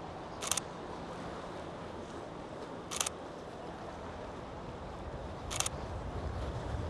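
Nikon Z50 shutter firing three short bursts of a few quick clicks each, roughly two and a half seconds apart. A low rumble builds under it near the end.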